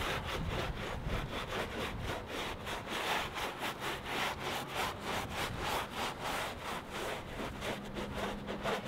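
Long-handled scrub brush scrubbing the soapy, scaly back of an albino monitor lizard in quick, even back-and-forth strokes, several a second, washing the dirt off its skin.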